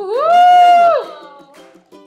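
A loud, high "whoo"-like cry that rises into a held note for under a second, then drops away, over background music.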